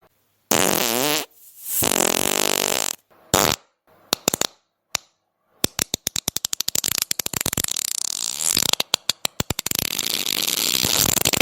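A string of fart sounds. Two longer ones with a wavering pitch come first, then a few short pops, then a long, rapid sputtering fart that runs on through the second half.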